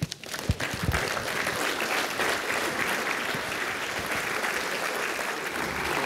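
Audience applauding: many people clapping steadily, swelling over the first second and holding.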